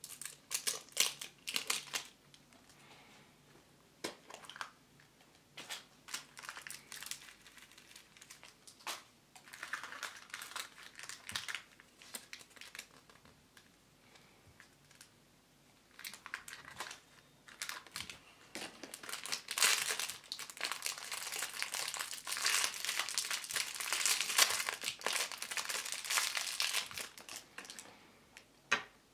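Hands crinkling and tearing a surprise egg's wrapper and handling its folded paper insert: irregular bursts of crinkling, with a longer dense stretch in the second half.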